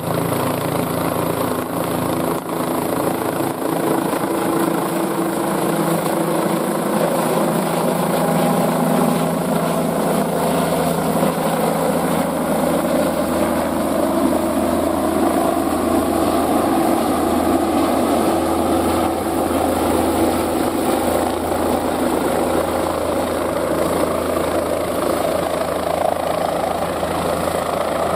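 Bell 407 helicopter's single turboshaft engine and rotor running continuously: a steady turbine whine over rotor drone. Between about ten and eighteen seconds in, a tone rises in pitch and a low drone grows stronger.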